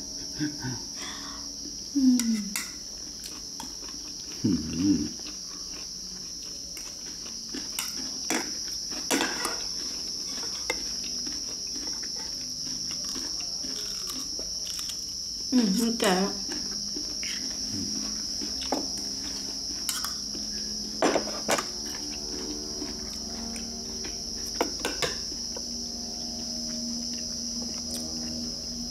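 Insects trilling in one steady, unbroken high drone, with spoons and forks clicking against bowls and plates as a meal is eaten, and a few brief murmurs.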